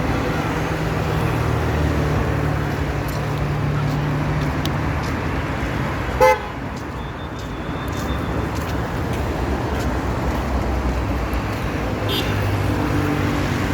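Road traffic with vehicle engines running steadily, and one short, loud car horn toot about six seconds in.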